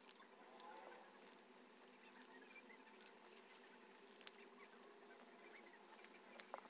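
Faint, scattered snips of scissors cutting through two layers of fabric, over low room tone, with a few sharper snips near the end.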